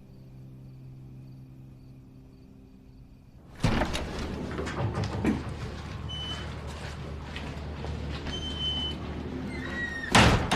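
Soft background music dying away. Then, about three and a half seconds in, a sudden busy room ambience of clatter and short clinking notes, with a loud knock or bang near the end.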